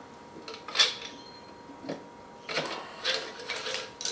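Metal clinks and knocks from a Yamaha XV1000 rear cylinder head being worked down over the cylinder while the cam chain is drawn up through it on a wire. There is one sharp click about a second in, then a run of rattling clinks in the second half.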